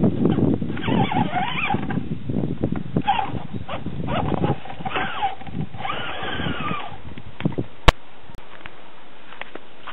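Electric motor and gearbox of an Axial AX10 RC rock crawler whining, the pitch rising and falling with the throttle in short bursts as it climbs over rocks, with tyres scrabbling on stone. The whine dies away about seven seconds in, followed by a single sharp knock.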